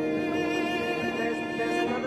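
Background music of bowed strings, led by violin, playing slow held notes that change every second or so.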